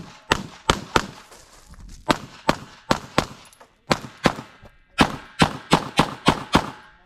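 AR-style rifle firing a string of about fifteen shots in uneven groups with short pauses, the fastest run near the end at about three shots a second.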